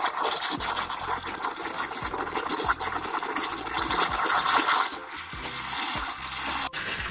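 Steam wand of a Breville espresso machine hissing and sputtering as it steams milk in a stainless steel pitcher. The hiss drops noticeably in level about five seconds in.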